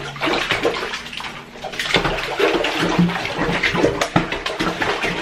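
Bath water splashing and sloshing as a small terrier-mix dog in a life jacket paddles its legs in a bathtub, held up by hand. The splashing gets busier and louder about two seconds in.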